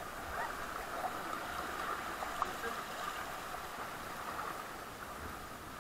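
Steady rush of whitewater from river rapids flowing around an inflatable raft.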